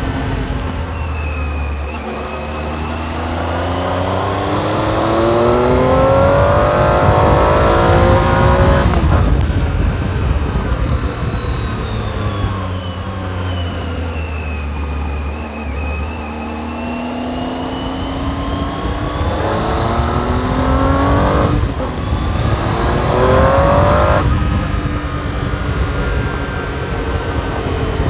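Triumph Tiger 800 XRx's three-cylinder engine through its stock exhaust, pulling hard with its pitch climbing, then dropping sharply three times as it changes up a gear. Heard from a helmet camera on the rider.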